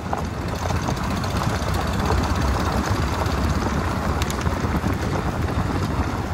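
A vehicle on the move: steady road and engine noise with no clear pitch.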